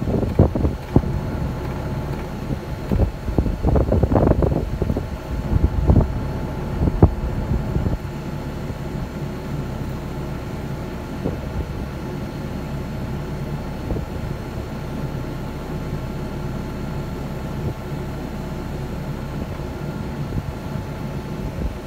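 Excavator's diesel engine running, uneven with loud low surges and a few knocks for the first several seconds while the bucket teeth push a sliding repair coupling along a water-main pipe, then settling to a steady hum.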